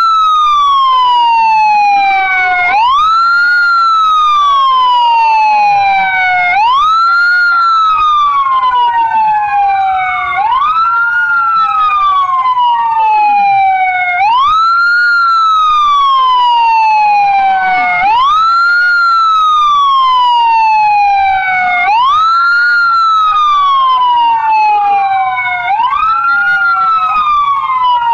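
Sirens wailing together, each rising quickly and falling slowly in a cycle of about four seconds, one loud and another fainter and out of step. They mark the Proclamation moment, when traffic halts and people stand still in salute.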